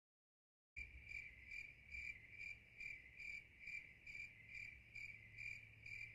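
Crickets chirping faintly in a steady, even rhythm of high-pitched chirps, a few a second, starting about a second in.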